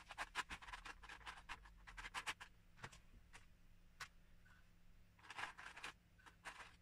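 Loose Lego pieces clicking and rattling against one another and a clear plastic tub as fingers rummage through them: quick flurries of small clicks near the start, around two seconds in and about five seconds in, with single clicks between.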